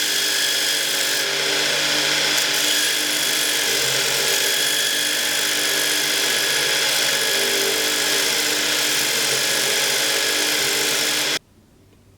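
Power grinder grinding the steel of a pattern-welded sword blade: a loud, steady hiss with a few steady tones, cutting off abruptly near the end.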